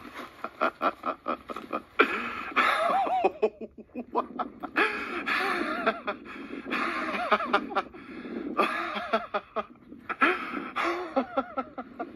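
People laughing hard in repeated bursts of breathy laughter, with some excited voices mixed in.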